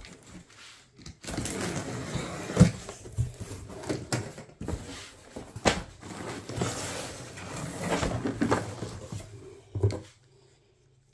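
A cardboard box being opened by hand: packing tape pulled off, flaps knocked and bent open, and crinkled kraft-paper packing rustled, with several sharp knocks and scrapes. The handling stops about ten seconds in.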